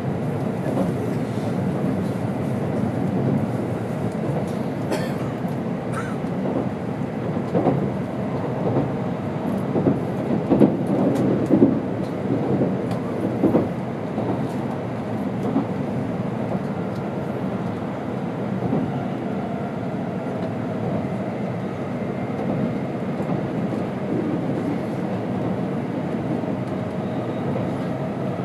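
Running noise of a Tokaido Shinkansen N700 series train heard inside the passenger car: a steady rumble of wheels on rail. About a third of the way through it turns louder and uneven for several seconds, with knocks and rattles, then settles back to the steady rumble.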